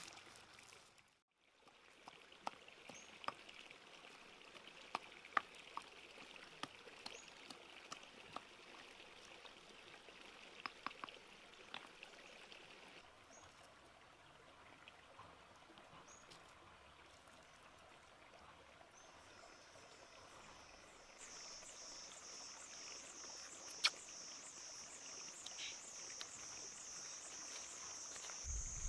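Faint outdoor insect sounds: a steady high hum, then, about two-thirds of the way in, a high insect chirp pulsing about twice a second, with scattered small clicks throughout.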